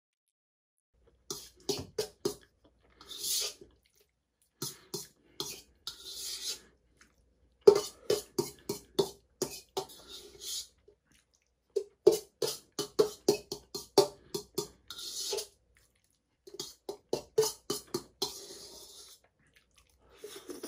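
Close-up chewing and lip-smacking of a mouthful of pasta: quick runs of wet clicks broken by short pauses, with several short hissing breaths between mouthfuls.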